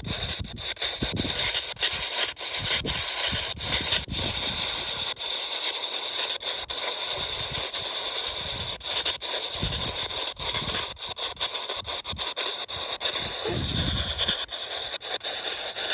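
Spirit box sweeping radio stations: a steady hiss of static broken up by rapid short cuts as it scans.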